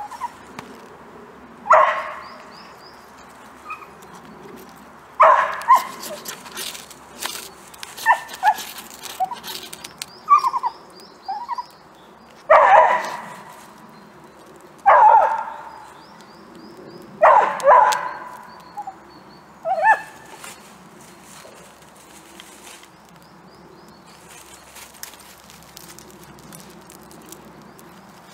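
Dachshund barking in about ten short, sharp barks, which stop about twenty seconds in. Between the barks come thin, quick scraping strikes of a ferrocerium rod on birch bark.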